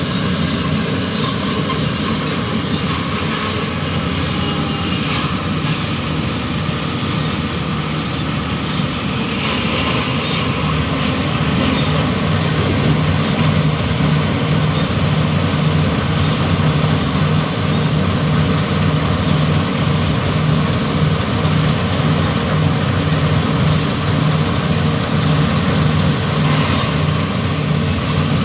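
Inder 930 Deluxe combine harvester running: a steady, loud heavy-engine drone that gets somewhat louder about ten seconds in.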